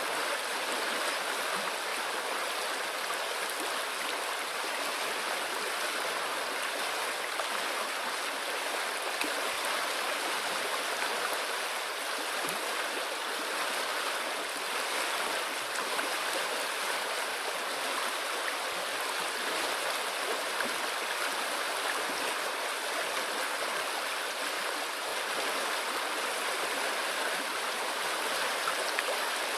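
River flowing: a steady, even rush of water with no change.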